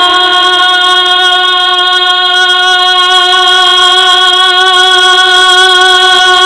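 A man singing a naat, holding one long sustained note at a steady pitch through a microphone, with no break for breath.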